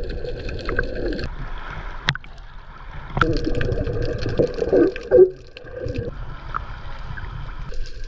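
Seawater sloshing and gurgling around an action camera as it dips at and under the surface while snorkeling, broken by abrupt changes between clips, with a few sharp knocks and a brief loud splash about five seconds in.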